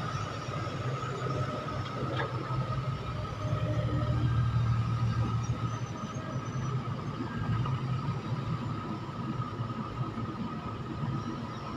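Heavy diesel engine of construction machinery running steadily, with a steady high whine over the low hum and a short click about two seconds in.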